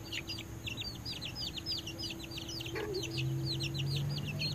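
Birds chirping in a fast, continuous stream of short, high, falling chirps, with one short, lower hen's cluck about three seconds in. A faint low hum joins soon after the cluck.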